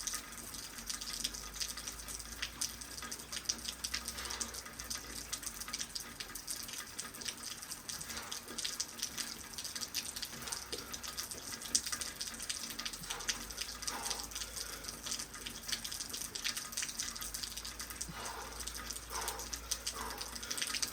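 Steady rain falling, with a dense patter of many small drips and splashes throughout.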